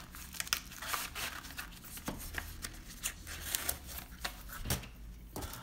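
Hands handling and opening a small cardboard retail box: a string of light clicks, taps and rustles of card and plastic packaging.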